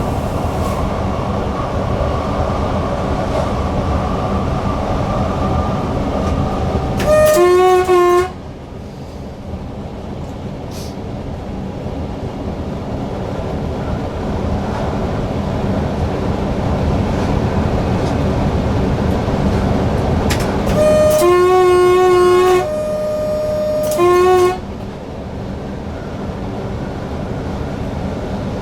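Newag Impuls EN63 electric multiple unit running along the line, steady wheel-and-rail noise, with its two-tone horn sounded twice: a short blast about seven seconds in, then a longer low-high-low sequence starting about twenty-one seconds in.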